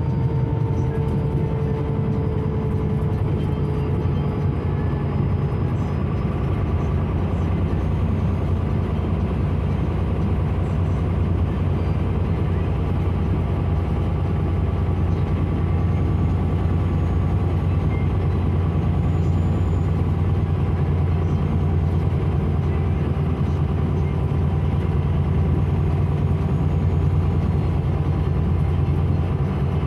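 Karosa C955 Récréo intercity bus under way, heard from inside the passenger cabin: a steady low drone of the diesel engine with road noise. A faint whine falls slowly in pitch over the first few seconds.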